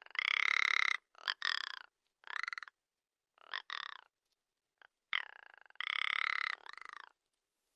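Repeated short animal calls, about ten in all, each under a second and pitched with a rattling texture, coming in irregular runs with pauses between.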